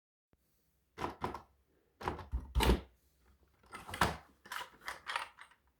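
Handling noises: a series of short knocks and scrapes, about eight over several seconds, with a heavier thump about two and a half seconds in, as of a toy box being handled and opened.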